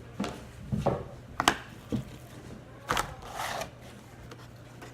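Handling noises: about half a dozen scattered knocks and clicks, the sharpest about one and a half and three seconds in, over a low steady hum.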